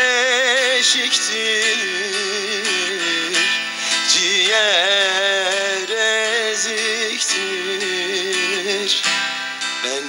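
Background music: an instrumental passage of a Turkish folk song, with plucked strings under a wavering, ornamented melody.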